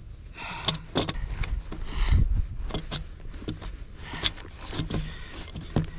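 Handling noise from bread dough being pressed and moulded around a metal cup on a wooden table: irregular rustling and scraping, with scattered small clicks and soft knocks, busiest about two seconds in.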